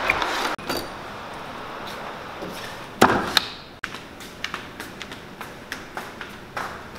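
A door banging shut with one loud knock about three seconds in, followed by footsteps on a hard shop floor, light clicks about two a second.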